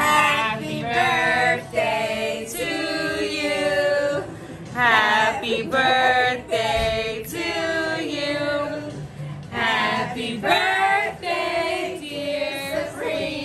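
A group of women singing together in phrases.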